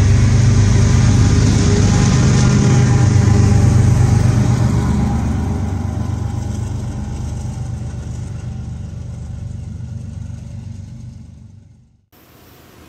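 Diesel freight locomotive engine running loud and steady, then fading over several seconds as it moves away. The sound cuts off abruptly near the end, leaving a quieter steady hiss.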